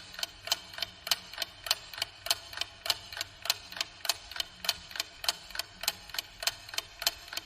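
Mechanical clock ticking steadily, about three ticks a second, alternating stronger and weaker ticks.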